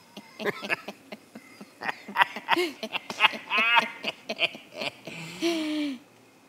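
A man and a woman laughing in quick bursts, ending in a long drawn-out vocal note.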